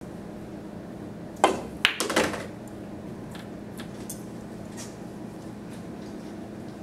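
A pool shot: the cue tip strikes the cue ball, then about half a second later comes a sharp click of ball on ball, followed by a short clatter of pool balls. A steady low hum runs underneath.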